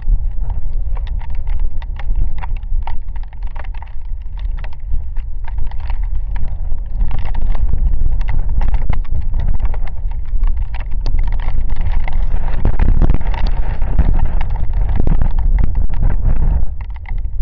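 Rainstorm with gusting wind: wind buffets the microphone in a loud, uneven low rumble, over many irregular sharp taps of raindrops striking close by.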